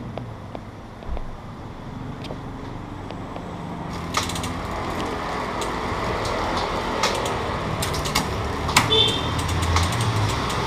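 Road traffic noise that swells about four seconds in as a vehicle passes, with scattered sharp clicks and knocks over it.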